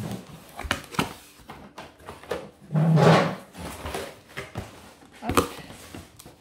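Cardboard packaging being handled: an outer carton's flaps are opened and an inner box is slid out, with several sharp knocks and scrapes of cardboard. A louder rough burst comes about three seconds in.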